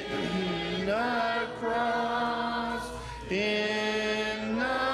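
Congregation singing a hymn unaccompanied in several voice parts, in slow, held notes that change about every second or so.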